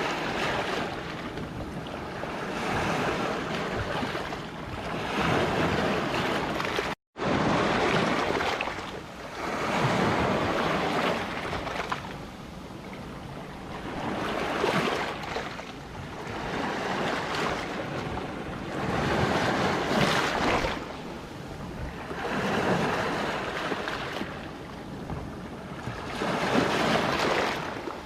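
Sea waves breaking on a rocky shore, the surf swelling and easing every two to three seconds. There is a brief split-second gap in the sound about seven seconds in.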